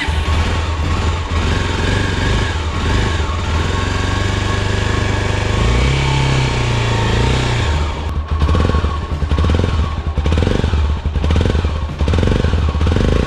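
Honda XR250 Tornado's single-cylinder four-stroke engine running through a Protork PowerCore3 aftermarket exhaust. It idles with a steady low pulse, rises in a short rev about six seconds in, then settles back to a more uneven idle.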